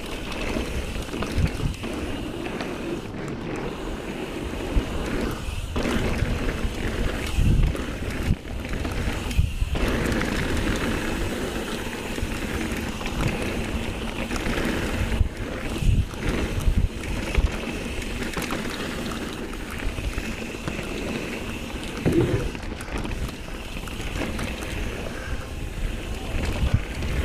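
Mountain bike riding fast down a dirt trail: steady rush of wind and tyre noise on the handlebar microphone, broken by irregular thumps and rattles as the bike hits bumps and landings.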